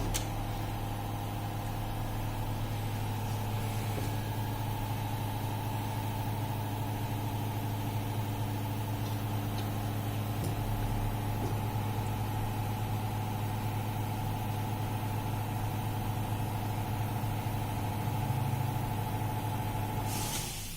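Two-head PVC window profile welding machine running with a steady, even hum, which cuts off shortly before the end.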